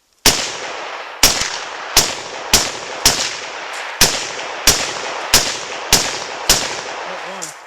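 Ten gunshots fired in quick succession at a target, one every half second to a second, each with a brief echoing tail.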